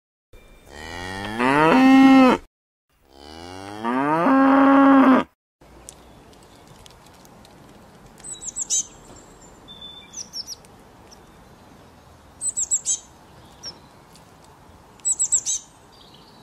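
A cow mooing twice: two long moos that rise in pitch and then hold level, each cut off abruptly. After that a small bird gives several brief runs of high-pitched chirps over faint background noise.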